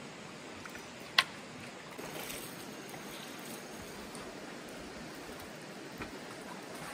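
Steady rush of flowing stream water, with one sharp knock about a second in and a fainter one near the end.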